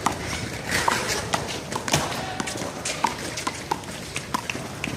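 A one-wall handball rally: irregular sharp slaps and thuds of the rubber ball struck by hand and hitting the wall and ground, with running footsteps. A few short high chirps are mixed in.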